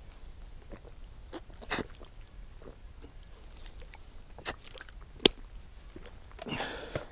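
A person chewing and crunching a snack close to the microphone, with a few sharp clicks and a short burst of rustling near the end.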